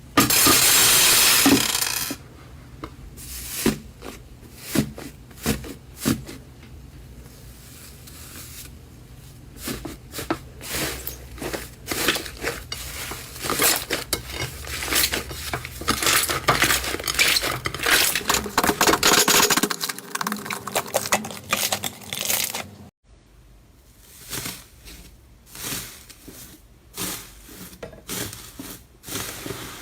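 Slime being squeezed and poked by hand, giving a rapid run of sharp clicks, pops and crackles, with a loud rushing noise in the first two seconds.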